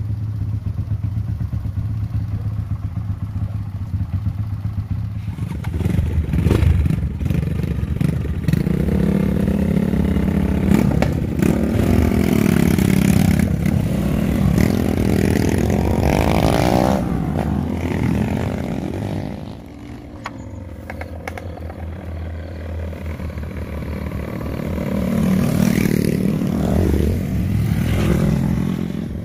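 Off-road trail motorcycle engine running, picking up and revving from about five seconds in, easing off briefly later and building again, with scattered clattering knocks as it rides rough ground.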